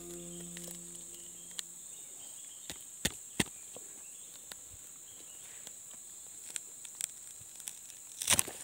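Machete blade knocking against the spiny husk of a small wild durian: a few sharp clicks, two close together about three seconds in and a louder cluster near the end, over a steady high chirring of forest insects. A guitar note dies away in the first second.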